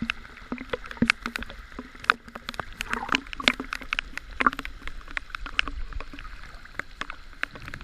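Choppy sea water splashing and sloshing at the surface, with many irregular sharp clicks and knocks.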